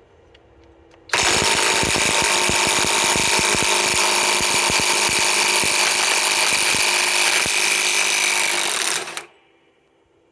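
Flex FX1451 mid-torque cordless impact wrench hammering on a large 1.5-inch nut. It kicks in about a second in with a rapid train of blows, runs for about eight seconds, and stops once the nut breaks loose.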